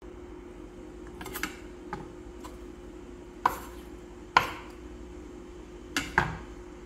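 Kitchen clatter: about seven separate knocks and clinks of utensils against a wooden cutting board and a tray, the loudest a little over four seconds in, over a steady low hum.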